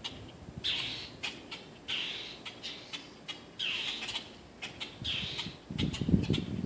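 Baby bird calling repeatedly: four short harsh calls about a second and a half apart, with a few light clicks between them. A burst of low rustling comes near the end.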